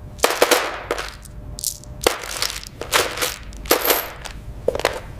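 Irregular sharp metallic clanks and clicks, a few a second, as steel PC case parts are handled, knocked together and set down during assembly.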